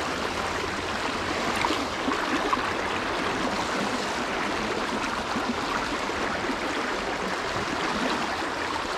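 River water flowing steadily over its bed, a continuous rushing hiss.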